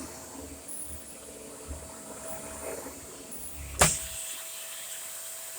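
Dyson Ball upright vacuum cleaner running with a steady whine, with one sharp click a little before four seconds in; the low rumble stops after the click while the whine carries on.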